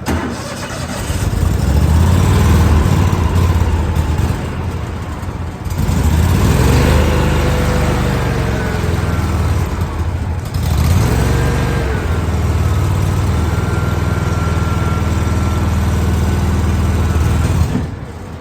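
Small gasoline engine running unevenly, rising in three long surges with brief dips between them, then dropping back to a lower speed near the end. It is not running right, and nobody has found the cause.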